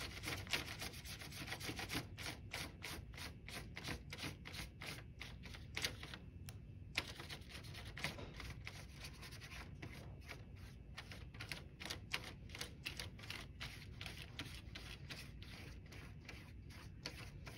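Paintbrush scrubbing watercolor paint back and forth across paper, a faint run of quick scratchy strokes, several a second, with a short pause about six seconds in.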